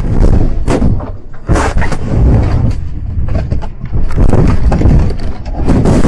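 Cabin sound of a BMW M4 rolling over in a crash: a loud, continuous rumble with repeated bangs and thuds as the car's body strikes the ground.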